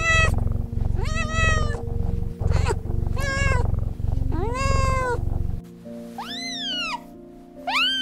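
A domestic cat meowing again and again, about five meows in the first five seconds, over background music with a steady beat. After a short break near six seconds, two higher rising-and-falling calls follow as the music thins.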